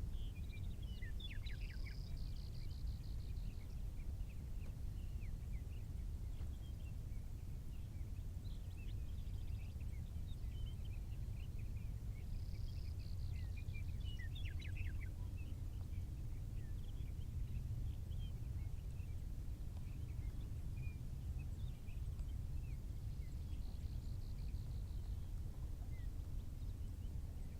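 Songbirds chirping, with a phrase of quick notes ending in a buzzy trill that comes back about every eleven seconds, over a steady low rumble.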